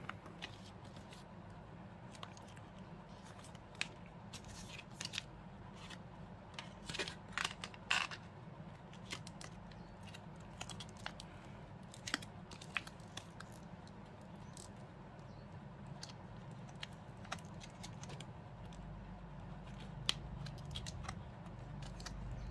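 Unboxing handling noise: paper packaging and a flashlight in a vacuum-sealed plastic bag being moved about, giving scattered crinkles, rustles and light clicks, busiest a few seconds in.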